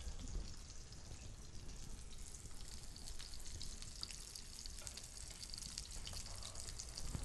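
Steak frying in a pan: a faint, steady sizzle with small crackles.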